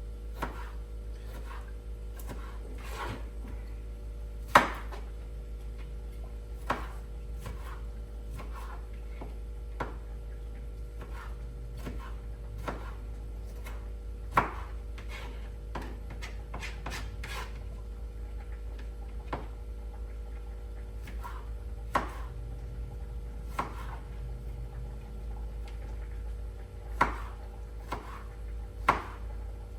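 Knife cutting up a tomato on a cutting board: irregular clicks and taps of the blade meeting the board, with a few sharper knocks, over a steady low hum.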